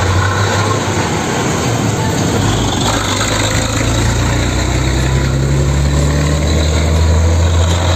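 Truck engine running steadily, with a low rumble that grows louder and rises slightly in pitch about halfway through, under a steady hiss.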